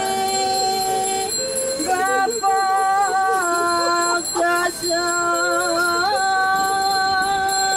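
Music: a slow melody of long held, voice-like notes that glide and waver between pitches, over a steady high ringing like a small bell.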